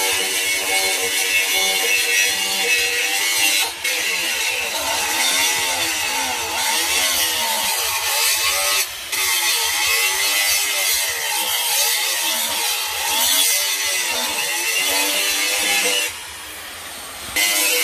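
Electric angle grinder cutting into a rusty steel bar, a loud whine and grinding hiss whose pitch sags and rises as the disc bites. It breaks off briefly about 4 and 9 seconds in, and drops for over a second near the end.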